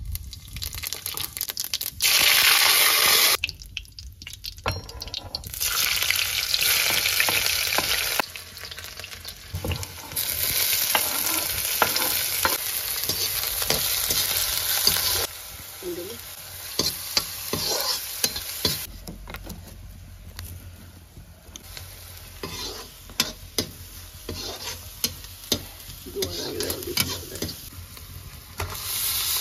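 Food frying and sizzling in a pan, with a utensil stirring and knocking against it. The sizzle comes in sections that switch on and off abruptly, with many sharp clicks of the utensil.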